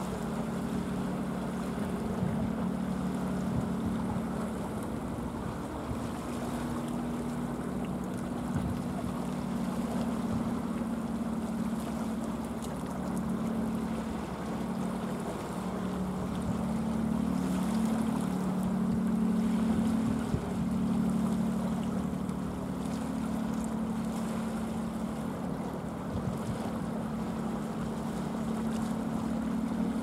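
Steady low engine drone, its pitch wavering slightly, over the wash of sea waves and some wind on the microphone.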